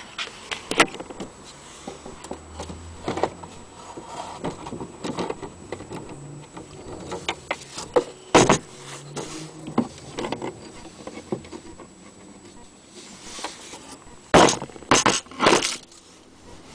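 Irregular clicks, taps and knocks with some rustling, unevenly spaced rather than a steady tick, and a quick run of louder knocks about two seconds before the end.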